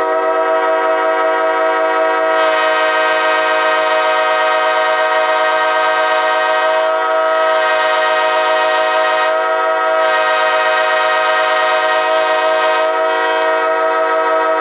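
Locomotive air horn blown in one long, steady blast, several tones sounding together as a chord, held without a break.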